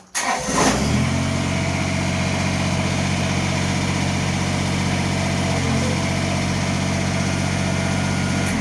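Kubota BX sub-compact tractor's three-cylinder diesel engine starting: a brief crank, it catches within about a second, then runs steadily at idle.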